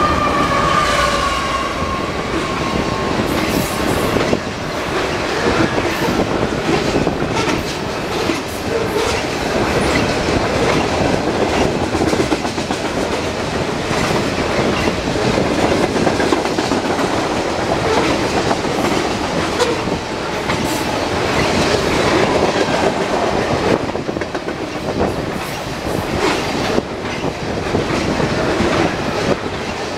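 A fast freight train of crude oil tank cars rolling past: a steady, loud rumble and rattle of steel wheels on rail, with repeated clicks and clacks as the wheels pass over the track. In the first two seconds the locomotive horn trails off, its chord dropping slightly in pitch as it recedes.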